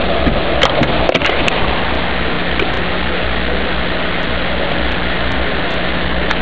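Audio recorded by the Utech DVX-600 camcorder itself: a loud, steady hiss with a low hum beneath it and a few faint clicks. It sounds dull, with no high treble, which is typical of the camera's poor built-in microphone and low-grade sound recording.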